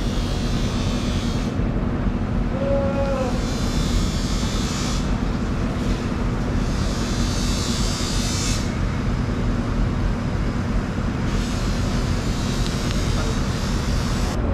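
Steady low machine hum under dense background noise, with a hiss that comes and goes about four times.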